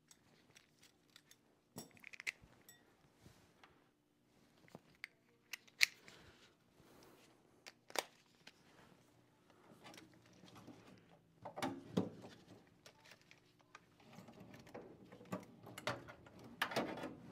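Scattered light clicks and taps of hand tools and metal furnace parts being handled, with rustling and clattering getting busier in the last few seconds.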